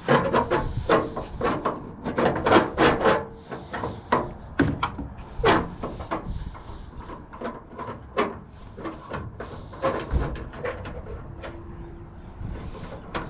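Irregular clanks, knocks and clicks of hand tools working on the metal fittings of a gas hot water unit while trying to remove its brass fittings.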